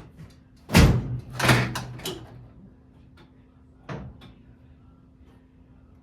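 Two loud slams, about a second in and half a second apart, then a lighter knock near four seconds: the heavy steel body panels of a 1952 Dodge Meadowbrook being shut. A faint steady hum runs underneath.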